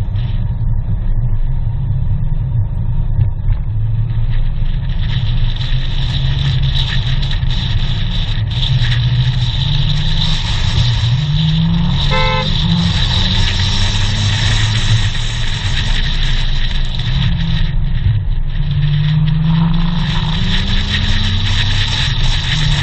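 Supercar engine running hard on a winding road, its pitch rising and falling as it accelerates and eases off, over steady wind and road noise at a bonnet-mounted camera. A car horn toots once, briefly, about twelve seconds in.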